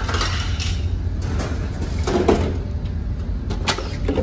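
Steady low rumble of the ferry Naminoue's engines, with a short louder knock about two seconds in and a few light clicks near the end.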